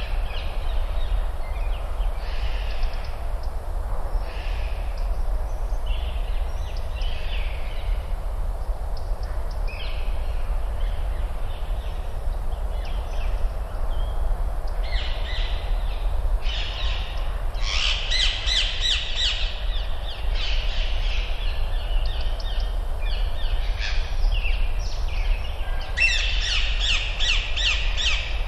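Woodland birds calling. Bursts of rapid, harsh chattering come about two-thirds of the way in and again near the end, over a steady low rumble.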